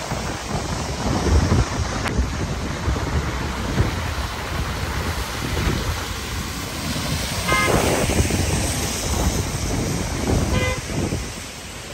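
Steady rush of rain and traffic on a flooded road, heard from inside a vehicle. Two short car-horn toots sound about three seconds apart in the second half.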